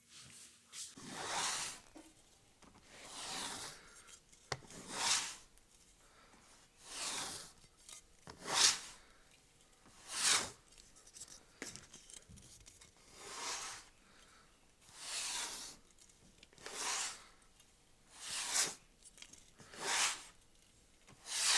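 A steel blade drawn by hand in long, even strokes, a swish about every one and a half to two seconds, a dozen times over. No grinder motor is running.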